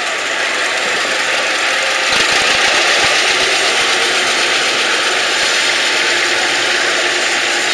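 Vintage tractor engines running at low speed as they pass close by: a two-cylinder John Deere, then a Massey Ferguson. A short run of low thumps comes about two seconds in, and the sound gets louder from there.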